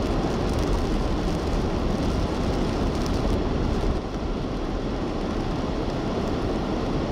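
Steady road noise inside a car driving at motorway speed: tyres on wet asphalt and the engine's drone, a constant rumble with a hiss over it that eases slightly about four seconds in.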